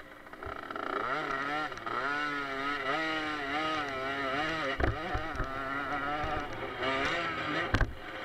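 A 50cc two-stroke automatic youth motocross bike's engine revs up about a second in, then rises and falls with the throttle as it is ridden hard over the dirt track. Two loud knocks come about five seconds in and near the end.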